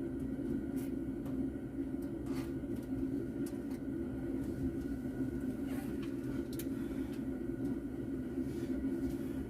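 Steady hum of an electric fan motor running, with a few faint clicks and rustles from wiring being handled.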